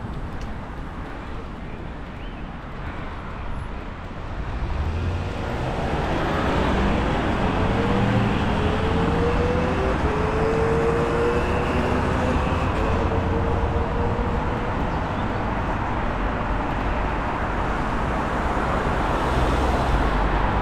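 Road traffic passing close on a busy road, with wind rumbling on the microphone of a moving bicycle. About five seconds in the traffic gets louder and a vehicle engine speeds up, its note rising in several steps over the next ten seconds.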